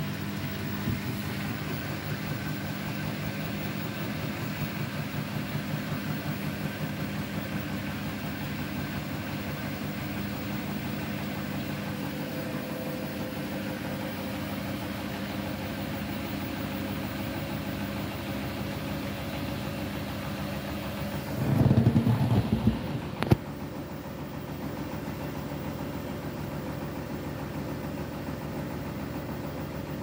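Beko WTK104121W front-loading washing machine turning its drum with a steady motor hum while it tries to balance a bedding load before its 1200 rpm final spin. About twenty-two seconds in comes a brief louder low rumble and thumping, then a sharp click, after which it runs slightly quieter.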